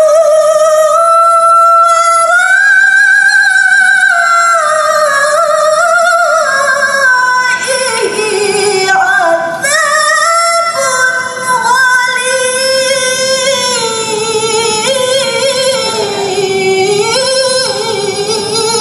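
A woman's solo Qur'an recitation (tilawah), sung in long melodic phrases with sustained, wavering notes and slow rises and falls in pitch.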